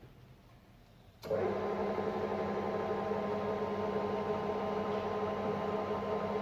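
Bimak 40 TF/C pillar drill switched on about a second in: a click, then its 2.2 kW motor and drive run up at once to a steady, even machine hum with several constant tones.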